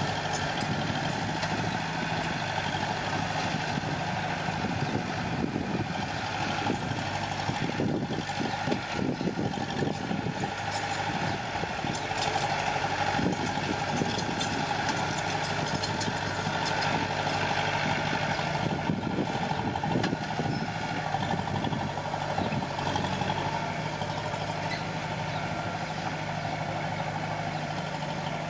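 Diesel engine of heavy earthmoving machinery running steadily, with irregular rattling and clanking mixed in.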